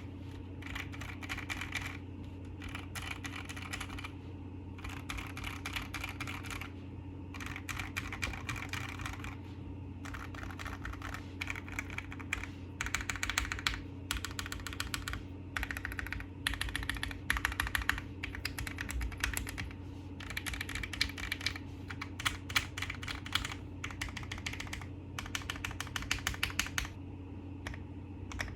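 Typing on a Keychron Q1 mechanical keyboard with Gateron Black Ink V2 linear switches: fast runs of keystrokes in bursts of a second or two, with short pauses between.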